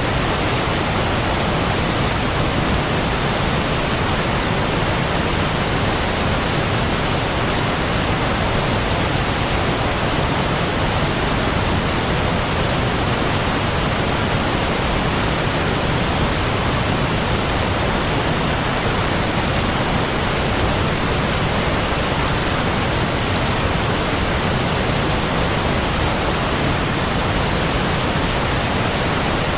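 Waterfall: a steady, loud rush of falling water that does not let up.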